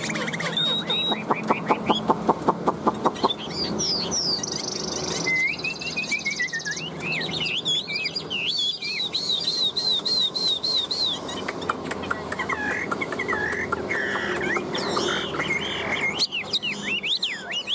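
Chinese hwamei (họa mi) singing. It opens with a rapid run of sharp repeated notes, about seven a second, then goes into a long string of varied whistled phrases with quick rising and falling glides.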